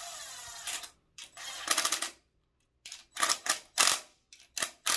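Cordless drill/driver running bolts of a timing chain guide into an iron LS engine block: a short whirring run, a second run about a second later, then several short bursts of rapid clicking in the second half.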